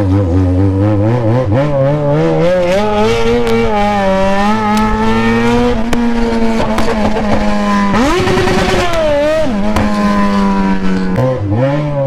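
Yamaha XJ6's 600 cc inline-four running loud through a bare exhaust pipe with no silencer, ridden on the road. The engine note climbs over the first couple of seconds and holds steady, dips and climbs again about eight seconds in, and drops to a lower note near the end.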